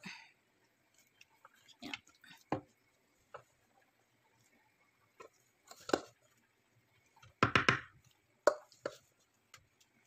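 Wooden spoon scooping cooked rice from one pot and dropping it into a stainless steel pot: scattered scrapes and knocks of wood on metal, with a quick run of knocks about seven and a half seconds in.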